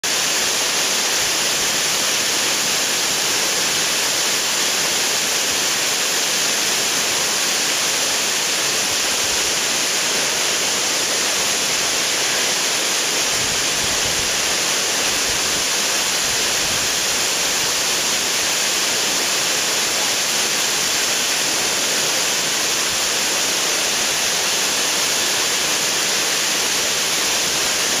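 Šútovo waterfall, a tall single fall of water down a rock face, rushing with a steady, loud, unbroken hiss.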